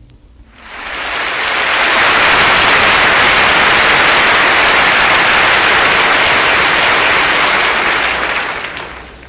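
Audience applauding, swelling in over the first second or two, holding steady, then dying away near the end.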